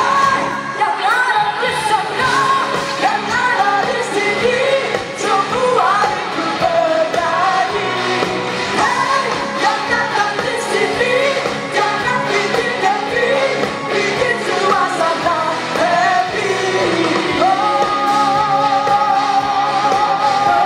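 Live rock song: a woman singing with electric guitar and band, going into a long held note near the end.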